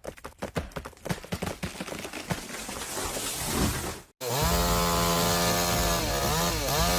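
A rapid, irregular series of sharp cracks and crackles for about four seconds. Then, after an abrupt cut, a chainsaw runs at high revs with a steady pitch that dips briefly and recovers near the end.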